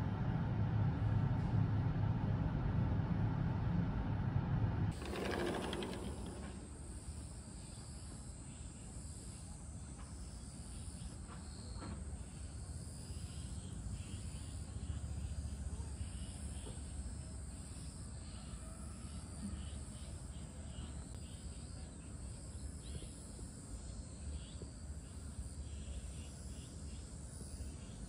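Crickets chirping in a steady, high-pitched chorus. It comes in after a louder low hum cuts off about five seconds in.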